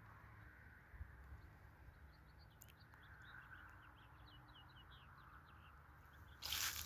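Faint outdoor ambience with a quick run of small bird chirps in the middle. Loud crunching noise starts near the end.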